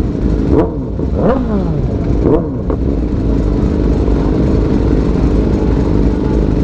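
Several sport bike engines idling together, with a few quick throttle blips in the first three seconds, each a short rev rising and falling back to idle, then a steady idle.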